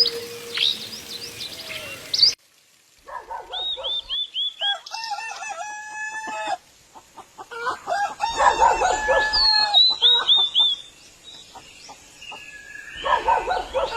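Birds calling: runs of short repeated high notes mixed with longer, fuller calls. The sound cuts off suddenly about two seconds in, and the calls start again a second later.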